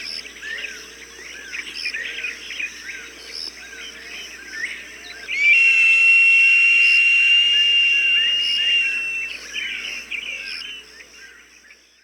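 Recorded bird calls from a hawk-sound bird-deterrent track: many short chirps throughout, with a long, steady, high whistle from about five to nine seconds in. It is the loudest part, and the whole recording fades out near the end.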